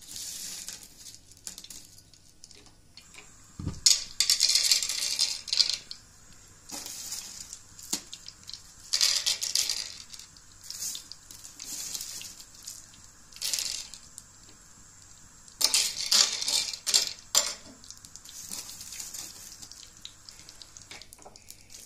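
Dried black myrobalan fruits clattering onto a hot iron griddle and being moved about with a steel spoon, with several short bursts of hissing and sharp clicks. This is the start of frying them in ghee.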